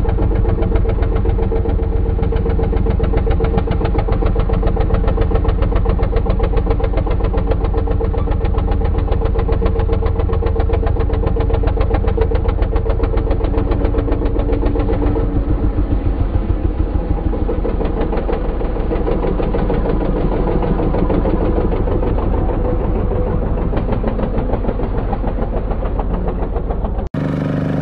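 Single-cylinder diesel engine of a two-wheel walking tractor running steadily under load, with a rapid, even chugging as it hauls a loaded rice trailer through deep paddy mud. The engine note shifts about halfway through, and the sound cuts off abruptly about a second before the end.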